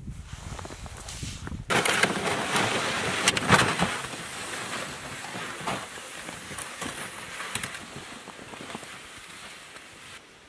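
Boots crunching through deep snow and a plastic sled dragging over it, starting abruptly about two seconds in. The crunching is loudest at first and fades steadily as the walker and sled move away.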